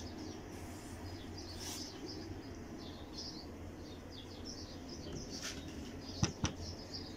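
A few sharp clicks near the end, the plastic retaining clips of a truck's upper radiator cover being popped loose. Underneath, faint bird chirps over a low steady hum.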